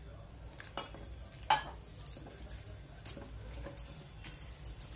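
Thick besan batter being mixed by hand in a steel bowl: wet squishing with irregular clicks and clinks against the metal, one louder clink about a second and a half in.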